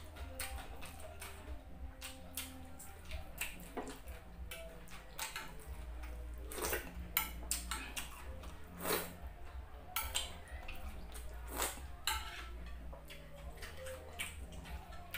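Close-miked eating sounds: chewing and wet mouth clicks, with a fork clinking against a glass dish a few times. A steady low hum runs underneath.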